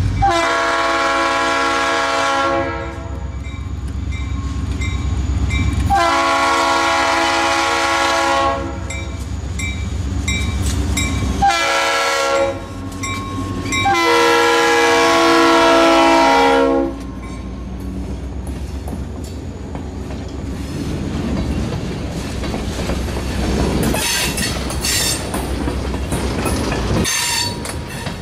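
Diesel freight locomotive's air horn sounding the grade-crossing signal, long, long, short, long, as the train closes in and passes. Then the freight cars roll by, wheels clicking over the rail joints.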